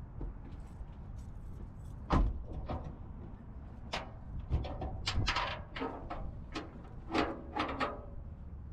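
Ratchet straps being undone from a loaded trailer: a series of metal clanks and knocks, the loudest about two seconds in, with bursts of rattling clicks from the ratchets and hooks.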